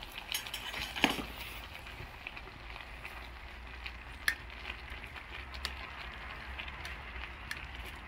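Large can of solid fuel burning under a pot of boiling ramen: a low steady flame rumble with scattered sharp crackles like burning firewood, the loudest about a second in.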